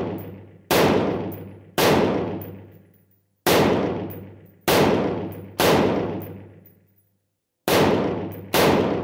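Seven single shots from an AR-15 rifle fitted with a CZ Bren 805 muzzle brake, roughly one a second with two longer gaps. Each shot has a sharp crack that rings out in a long echo.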